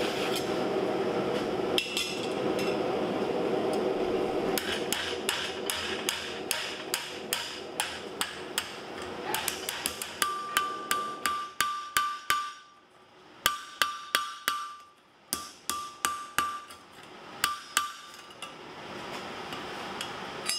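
A hand hammer striking a flat steel strap against a steel cone mandrel to bend it into a ring. The blows start a few seconds in at about two a second. About halfway through they come in quicker runs that ring with a clear metallic tone, with short pauses between the runs.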